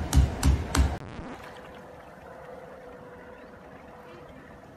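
Three quick, sharp claps in the first second, about three a second. After them comes a faint, steady background hum.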